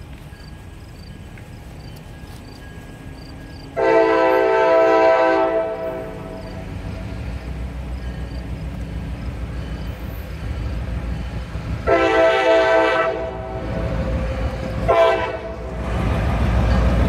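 CSX diesel locomotive, running light, sounding its air horn for a grade crossing: a long blast about four seconds in, another long one about twelve seconds in, then a short one near fifteen seconds. This is the start of the standard long-long-short-long crossing warning. Underneath, the locomotive's low engine rumble grows louder as it approaches.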